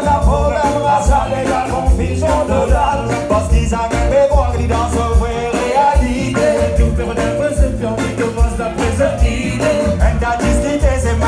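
Live band music with several singers over electric guitar, bass, keyboard and drums.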